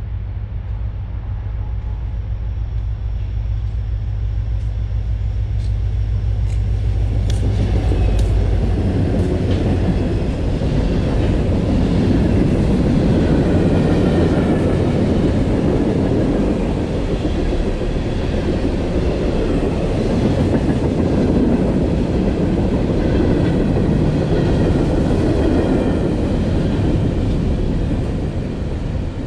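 Freight train rolling past close by: a low steady drone for the first several seconds, then from about seven seconds in the rumble and clatter of the cars on the rails, easing slightly near the end.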